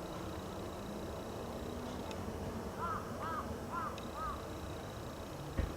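A crow cawing outdoors, four short caws about 0.4 s apart a few seconds in, over a steady low background rumble, with a short low thump near the end.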